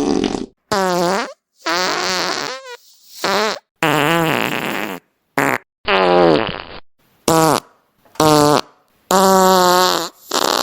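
A quick series of about ten separate fart sounds with short gaps between them. Each lasts from a fraction of a second to about a second and has a buzzy, wavering pitch. Some are short blips and some are drawn out.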